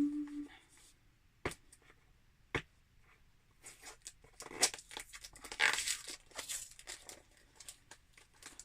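Hands prying open a sealed cardboard subscription box: two sharp taps, then a run of scraping and tearing sounds from about three and a half seconds in, as the seal gives and the lid is worked free.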